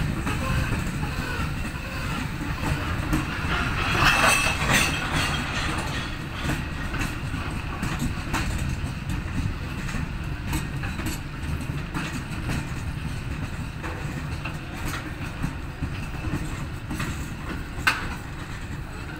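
Freight train of open box wagons rolling past: a steady low rumble with the wheels clacking over rail joints. It grows louder for a moment about four seconds in, and there is a single sharp clank near the end.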